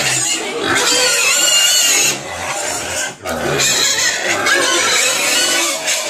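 Pigs squealing loudly and continuously, with a brief break about three seconds in: hungry pigs at feeding time while their feed is being mixed.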